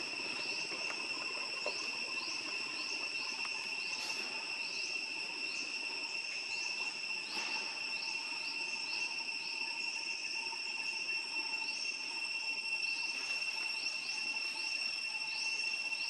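Forest insects droning in a steady high-pitched buzz, with short rising chirps repeating irregularly over it.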